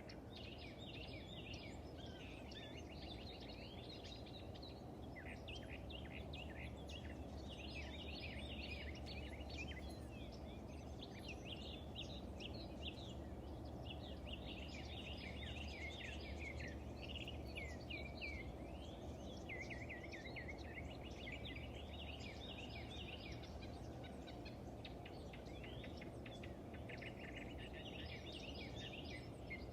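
Morning chorus of many birds chirping and singing at once, short rapid calls overlapping throughout, over a steady low background rumble.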